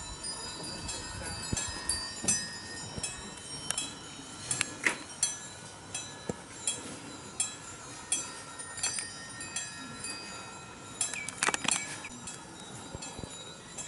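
Many small pagoda bells tinkling: light, irregular strikes at different pitches, several ringing over one another, with a brief cluster of strikes about eleven seconds in.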